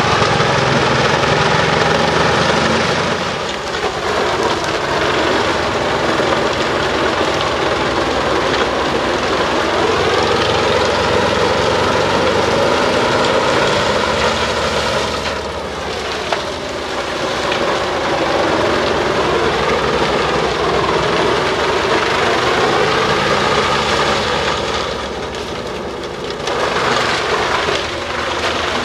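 Bruks 1006 ST truck-mounted wood chipper, driven by its own 720 hp engine, running hard while chipping logging residue. The pitch and loudness sag and recover a few times: early on, about halfway, and near the end.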